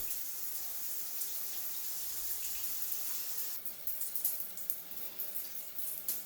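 Running water: a steady hiss that breaks up into uneven small ticks and splashes about three and a half seconds in.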